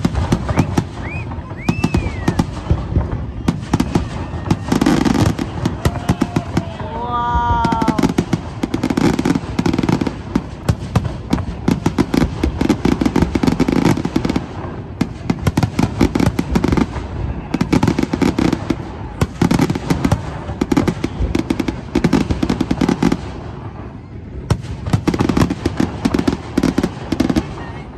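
Aerial fireworks display: shells bursting in quick succession with a dense mix of bangs and crackling, easing briefly near the end before picking up again.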